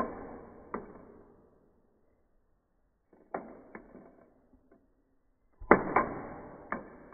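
LEGO hammer-game lever being pressed and released, the plastic pieces snapping: sharp plastic clicks and clacks in three clusters, near the start, around three and a half seconds in, and near the end.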